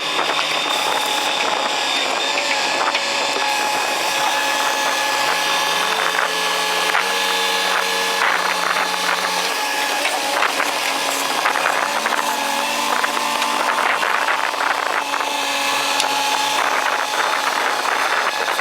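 Heavy construction machine's diesel engine running and working, its pitch stepping up and down several times as the load changes, with a high mechanical whine on top.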